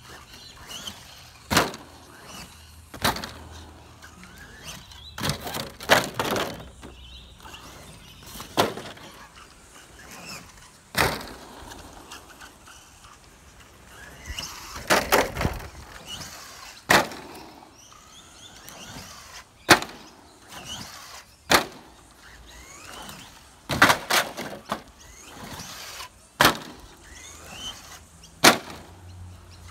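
A 1/10-scale RC short course truck jumping off ramps and landing, over and over: about a dozen sharp clattering impacts as it hits the asphalt and the ramps, irregularly spaced one to three seconds apart.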